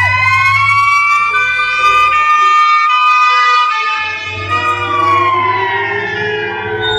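Fire truck siren wailing: its pitch rises slowly for about two seconds, holds, then falls slowly through the second half. Other tones shifting in steps sound over it, with a low rumble underneath that drops out briefly in the middle.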